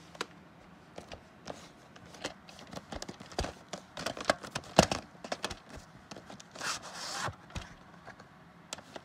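Handling noise from a plastic VHS case and cassette: scattered clicks and knocks of plastic, the sharpest about five seconds in, with a brief sliding, rubbing noise about seven seconds in as the tape comes out of its case.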